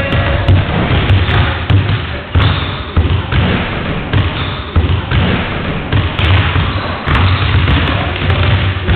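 Several basketballs bouncing on a wooden sports-hall floor, with many irregular, overlapping thuds echoing around the hall.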